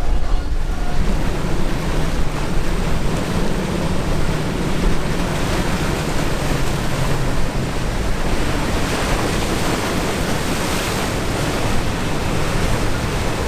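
Rough surf washing and breaking, with wind buffeting the microphone and a steady low drone underneath.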